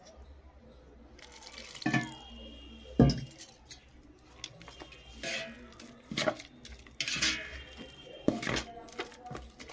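Water being added to gram flour in a bowl and mixed into a batter, with about six irregular knocks and splashy scrapes of the spoon against the bowl, the sharpest about 3 s in.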